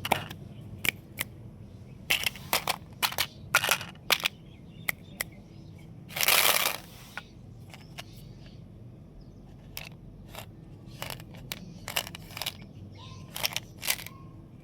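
Plastic candy wrappers crinkling and crackling as sweets are handled and unwrapped, in a string of sharp irregular crackles. About six seconds in, a longer noisy rip of roughly a second, a wrapper being torn open.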